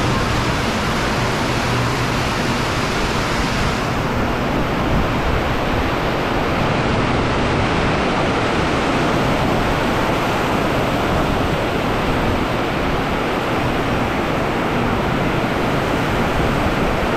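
Steady rushing noise of wind on the microphone, with no distinct events; the high hiss eases slightly about four seconds in.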